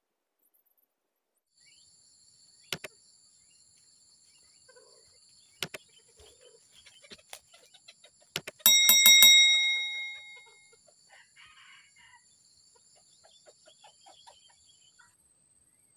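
Subscribe-button animation sound effect: a mouse click, another about three seconds later, a third just before a notification bell rings loudly in a quick trill and rings out for about a second and a half. Faint, steady, high-pitched tones run underneath.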